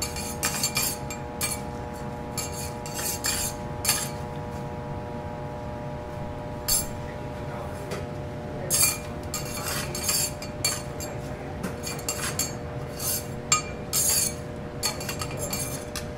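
Metal teppanyaki spatulas clinking and scraping against the steel griddle in irregular, sharp strikes, over a steady background hum.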